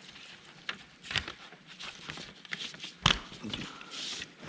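Light clicks and scrapes of small parts being handled as a gear is taken off a bus heater control's pin, with one sharper click about three seconds in.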